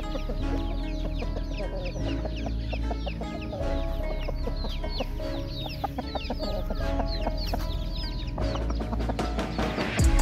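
Chickens clucking and peeping with many short, falling calls, over background music.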